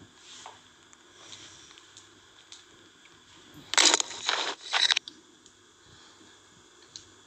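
Three short, loud scraping rustles close to the phone's microphone about four seconds in, typical of the phone being handled or rubbed. Otherwise a quiet room with a faint hum.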